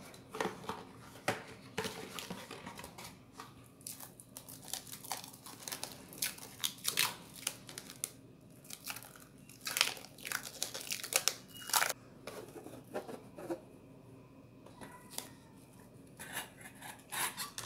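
Plastic cling film being pulled off its roll, stretched and crinkled, with a run of sharp crackles and rips, densest in the middle.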